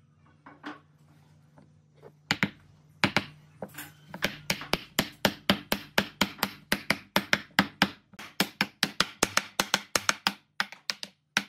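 Wooden mallet striking a stack of pine blocks, pounding the glued and nailed top blocks down onto the lower ones. A few single blows come first, then a quick steady run of about four knocks a second, with short pauses.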